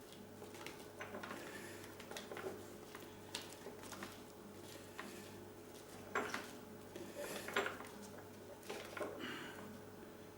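Irregular light metallic scrapes, clicks and handling noise as a PL259 connector is twisted onto RG58 coax, with the sharpest clicks a little past the middle. A steady low hum runs underneath.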